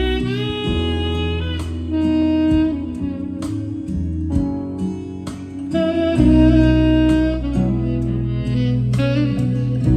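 Recorded music with a sustained melody line and guitar over a deep bass, played back through a Kenwood KA-701 stereo amplifier.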